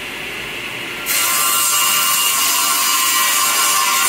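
Table saw running, its blade biting into a sheet of plywood about a second in and cutting through it with a loud, steady sawing noise.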